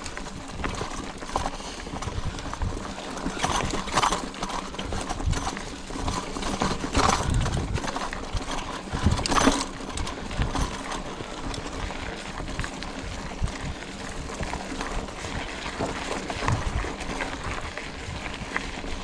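Scott Spark full-suspension mountain bike rolling fast over a rough dirt trail strewn with dry leaves and stones: steady tyre noise with irregular clattering knocks as it goes over bumps, loudest about four, seven and nine and a half seconds in.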